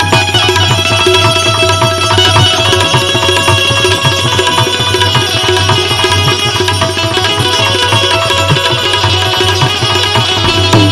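Instrumental interlude in a live Gujarati devotional bhajan: tabla plays a steady rhythm under an accompanying instrument holding sustained notes, with no singing.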